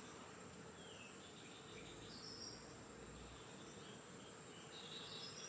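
Faint garden ambience: a steady high-pitched drone of insects, with a few short high chirps about two seconds in and near the end.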